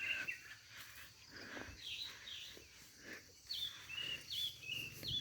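Birds singing, with a repeated phrase of short downward-slurred whistles followed by a level note, heard several times over a quiet rural background.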